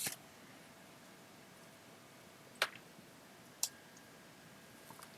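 Three short, sharp clicks of small hand tools against a workbench, one at the start and two more about a second apart midway through, over a quiet room background.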